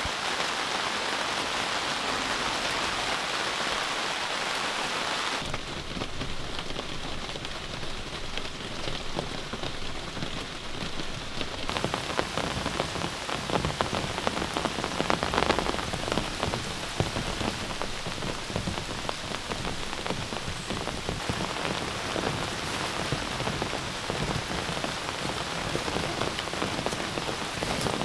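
Heavy rain falling steadily as an even hiss. About five seconds in the sound changes to a closer, denser rain, with many small drop strikes close by.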